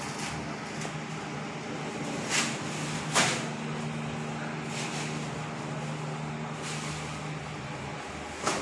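Steady street traffic noise with a low engine hum, broken by a few short knocks.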